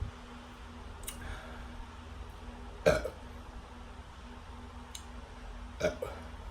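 A woman burping twice after drinking sparkling water: two short belches about three seconds apart, the first louder.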